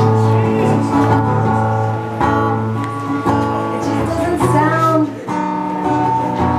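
Acoustic guitar strummed in a steady run of chords, with a woman singing along in places.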